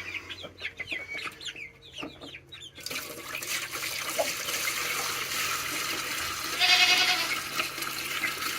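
Chickens clucking, then water pouring or running steadily from about three seconds in, with a brief louder surge about seven seconds in.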